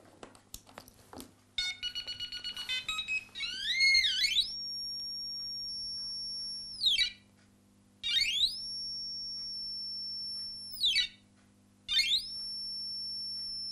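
Metal detector's electronic tones: a quick run of short beeps, then three long high-pitched tones, each sliding up, holding steady and dropping away. This is the detector's alert going off over a target.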